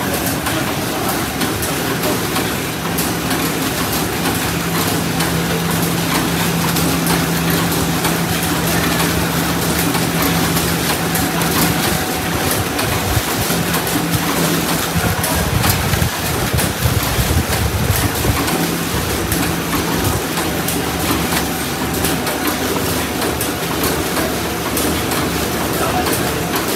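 Steady mechanical din of snack-factory packing machinery running, with rapid clicking and a low hum through most of it.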